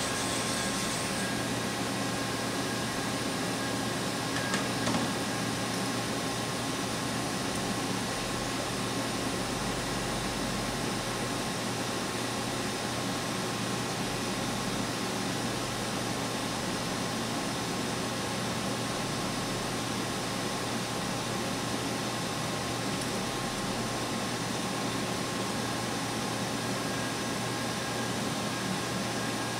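Kuraki KV-1000 vertical machining center running under power: a steady mechanical hum and hiss with a few constant whining tones, and a brief small knock about five seconds in.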